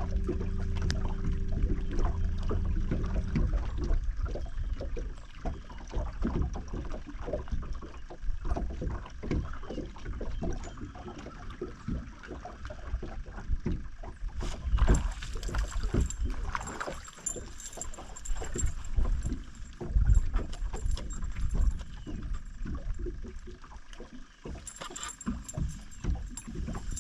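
Irregular knocks and thumps on a fishing boat, with a steady low hum that stops about three seconds in.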